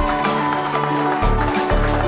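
Background music with a steady beat and a low bass line that changes note about halfway through.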